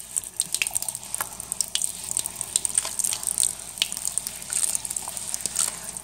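A wet washcloth scrubbing and wiping rust stains from around a sink drain, making irregular small wet clicks.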